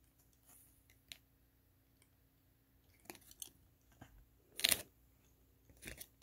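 Donruss football trading cards handled in a stack, giving faint papery clicks and rustles as the front card is slid off, with one louder scrape a little before the end.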